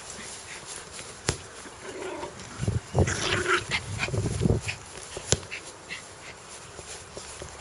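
A dog growling in a few rough bursts in the middle, with two sharp clicks, one before the growls and one after.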